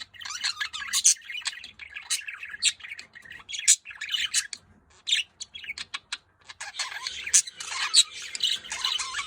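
Budgerigars chattering: a rapid run of chirps and sharp squawks, which dies away for a second or two past the middle and then comes back denser.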